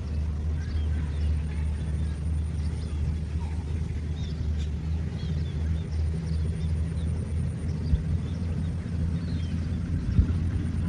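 Harvester's engine running with a steady low drone, with two brief thumps about eight and ten seconds in.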